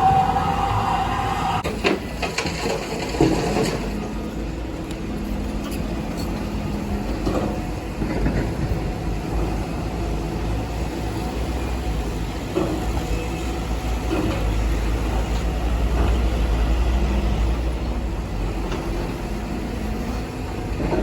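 Heavy diesel earthmoving machinery running with a steady low engine rumble. A rising whine fades out in the first second or so, and two sharp knocks come at about two and three seconds in.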